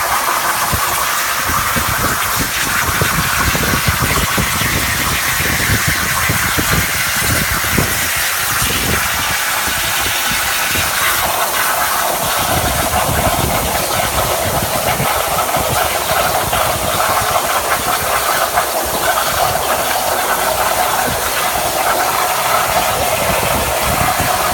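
CNC plasma cutter's arc hissing steadily while it cuts, its tone dropping slightly about halfway through.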